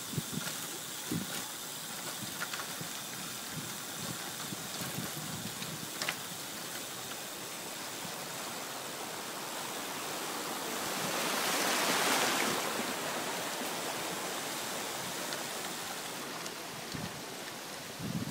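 Steady rush of wind and tyre noise from a road bike descending. About eleven seconds in, a rush of splashing water swells up and fades as the bikes ride through a stream flowing across the road.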